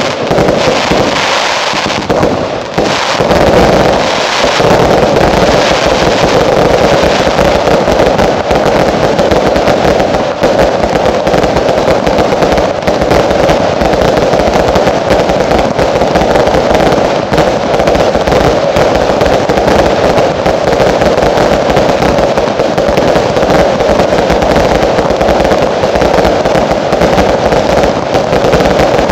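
Consumer fireworks (category 2 and T2 single shots) going off in rapid succession: a dense, unbroken stream of bangs and crackling bursts, slightly thinner in the first few seconds, then near-continuous.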